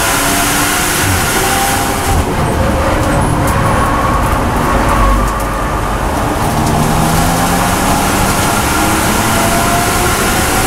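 In-car sound of a BMW M240i race car's turbocharged straight-six under hard acceleration. About two seconds in the engine backs off to part throttle. Over the last few seconds it is back on full throttle and climbs steadily in pitch.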